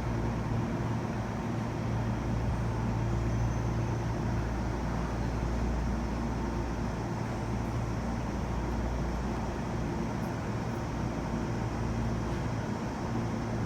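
JR West 207 series electric train running, heard from inside the carriage: a steady rumble of wheels and track with a low hum.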